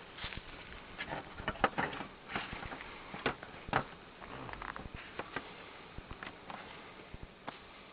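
Irregular clicks and knocks of a metal strap buckle and a webbing strap being pulled tight around a wooden beehive by gloved hands, busiest in the first half.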